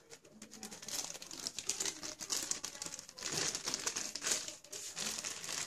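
Clear plastic wrapping crinkling as a handheld wireless microphone still in its bag is handled. The crinkling is irregular and continuous.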